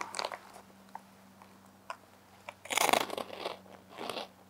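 Crunchy snack chips being bitten and chewed: a loud crunch about two and a half seconds in, with lighter crunches just before and near the end.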